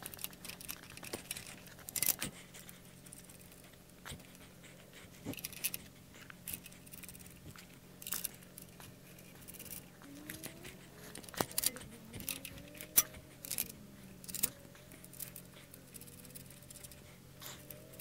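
Steel nuts and bolts being fitted by hand into a galvanized steel sawmill frame and cross bunk: scattered metallic clinks, taps and scrapes as the bolts are pushed through and the nuts threaded on. From about ten seconds in there is also a faint wavering whine.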